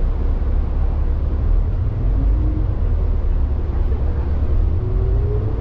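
A city bus's engine and road rumble heard from inside the passenger cabin, a steady low drone. Near the end a thin whine rises in pitch as the bus gets moving.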